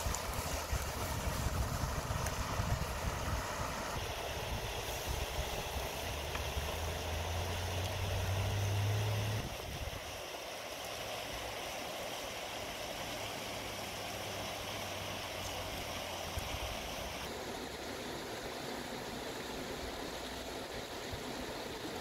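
Shallow river running over stones, a steady rushing hiss. Wind rumbles on the microphone through the first half and stops about ten seconds in.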